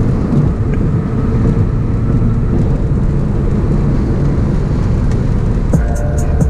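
Toyota Aristo being driven: steady engine and road rumble heard from inside the cabin. Music with a beat comes in near the end.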